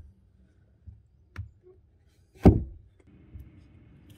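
Wooden logs knocking against each other as they are handled and set onto a log wall: two light knocks, then one heavy thud about two and a half seconds in. A faint steady hum starts near the end.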